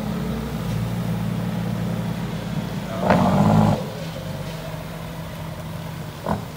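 Vehicle engine running steadily at low speed, with a louder swell about three seconds in and a short sharp sound near the end.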